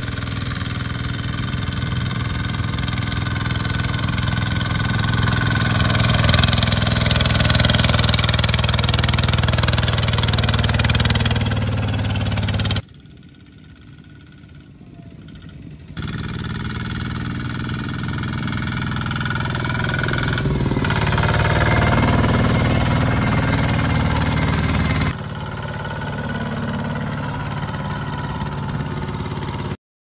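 Single-cylinder diesel engine of a two-wheel walking tractor running under load while hauling a trailer of rice sacks. The engine sound drops suddenly to a much quieter stretch partway through, returns, steps down again later, and cuts off abruptly near the end.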